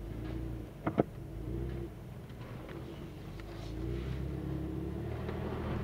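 4x4 engine running at low revs while crawling over a rocky trail, a steady low hum. Two sharp knocks about a second in.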